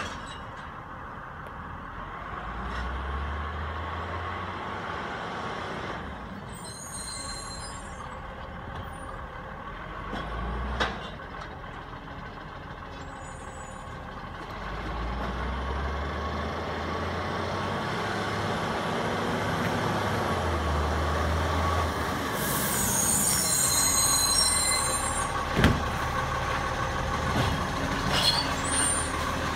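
Iveco recycling truck's diesel engine running and revving in spells as it moves from stop to stop, growing louder as it approaches. Its air brakes hiss briefly about a third of the way in and again near the middle, with a longer hiss later on, and there are a couple of sharp knocks.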